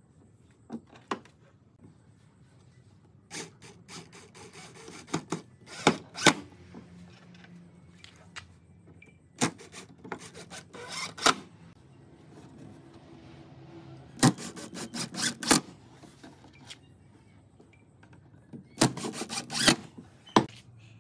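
Cordless drill driving screws through small steel hinge plates into a pine frame, in four short bursts of sharp clicks and knocks of metal and wood.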